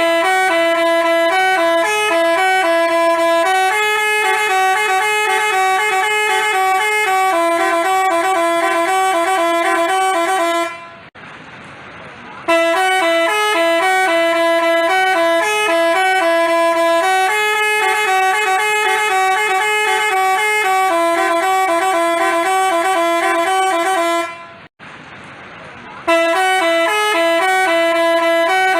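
Telolet basuri musical bus horn playing a tune of stepped notes, breaking off twice, about eleven and twenty-four seconds in, before starting the same tune again.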